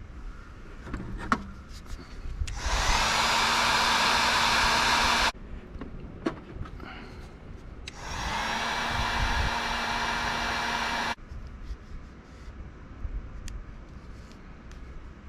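Heat gun running in two blasts of about three seconds each, shrinking heat-shrink solder-seal connectors on wiring. Its fan motor spins up as it switches on and cuts off abruptly, with light handling clicks between the blasts.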